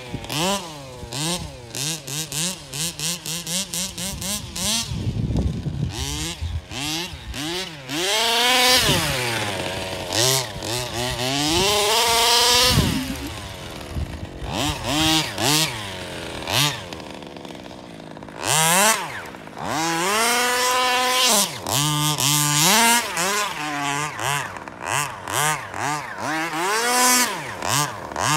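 Radio-controlled car's motor revving up and down over and over, its pitch rising and falling with each throttle burst, with scattered short knocks and rattles.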